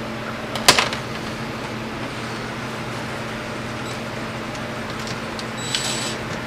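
Steady low hum, with one sharp click a little under a second in as a plastic drain saddle clamp is handled on a PVC drain pipe. Near the end a short whirr as a cordless drill is set to the clamp.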